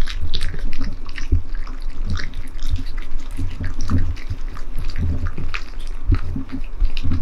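Two cats eating from raised bowls close to the microphone: wet lapping and chewing, made of many quick irregular clicks and smacks.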